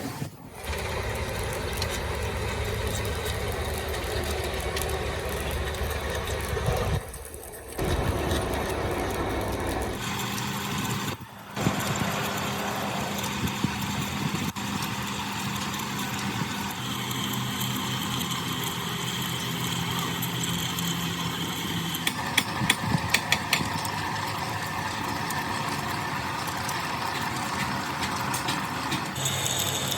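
Steady running machine noise in several cut-together stretches, each with its own even hum, with a run of sharp clicks and knocks a little past two-thirds of the way in.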